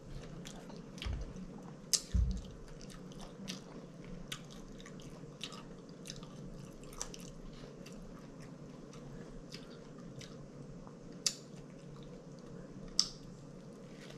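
A person chewing and biting into a fried catfish sandwich, with wet mouth sounds and many short sharp lip smacks and clicks, a few louder smacks standing out about two seconds in and near the end.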